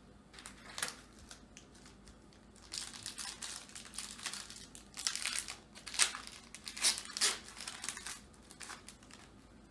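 Foil wrapper of a basketball trading-card pack crinkling and tearing as it is opened by hand, in irregular crackles that thicken after the first few seconds, with a few louder sharp crackles in the second half.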